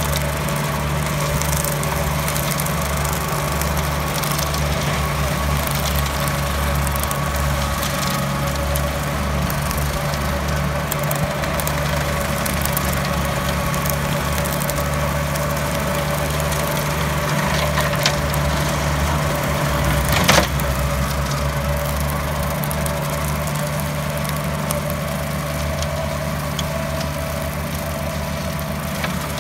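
Tractor engine running steadily as it drives a tractor-mounted rotary mower cutting grass, with a steady hum and a fainter whine higher up. A single sharp knock about twenty seconds in.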